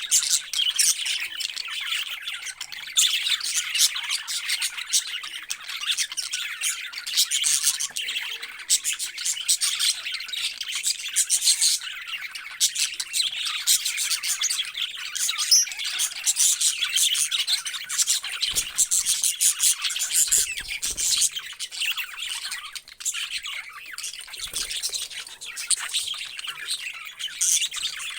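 A flock of parrots chirping and squawking at once, a dense, unbroken chatter of short high calls.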